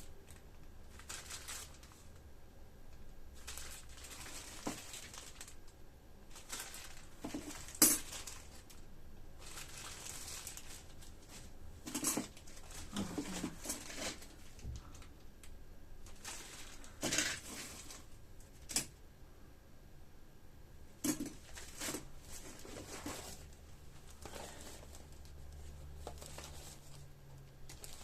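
Rummaging through a drawer of electronic parts: scattered clicks, clatters and rustles of small items being moved about, with one sharp knock about eight seconds in.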